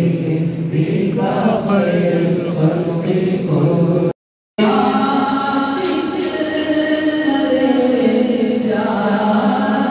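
An imam's chanted recitation during the Friday congregational prayer: a melodic voice holding long notes that slide up and down in pitch. The sound cuts out briefly about four seconds in.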